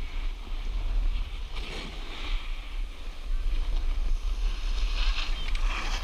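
Snowboard sliding and scraping over hard, icy snow: a rushing hiss that swells twice, with wind rumbling on the microphone underneath.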